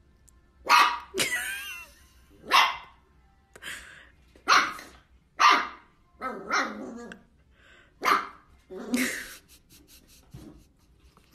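Small puppy barking at its own reflection in a mirror: about nine short barks, roughly a second apart.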